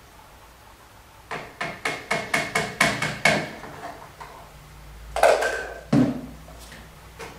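Liquid glugging through a plastic funnel into a plastic bottle: about nine quick glugs, about four a second, as air pushes back up through the funnel. Near the end, a loud plastic knock and then a dull thump as the funnel is lifted out and set down in a cup.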